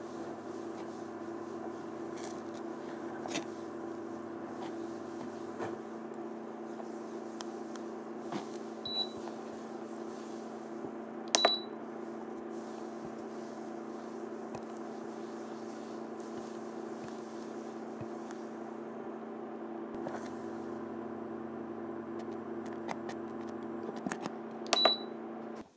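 Steady electric hum of an induction cooktop heating a ceramic pot, with a spatula stirring and a few sharp clicks as it knocks against the pot, the loudest near the middle and near the end.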